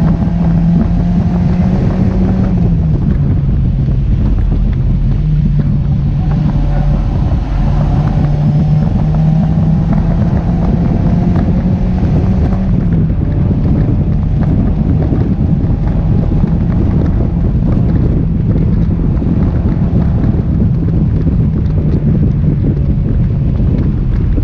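Mazda MX-5 NC's four-cylinder engine pulling at track speed, its note rising slowly and easing off a couple of times, heard from inside the open cockpit with heavy wind rush over the microphone.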